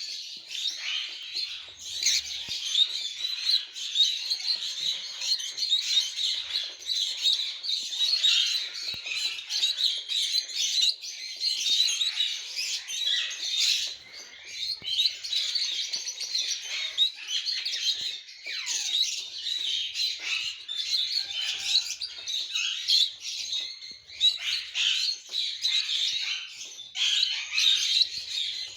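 Many caged pet birds of lutino and blue colour mutations chirping and chattering continuously, a dense overlapping flock chatter.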